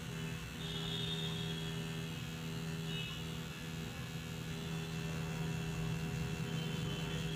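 Coil tattoo machine buzzing steadily as its needle works ink into practice artificial skin, with a higher ringing that comes and goes.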